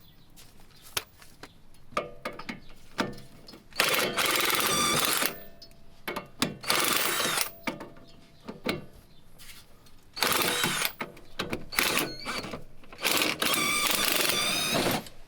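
A tool working on a stuck sway-bar end link nut in repeated bursts of one to two seconds, with sharp clicks in between; the nut is not coming off.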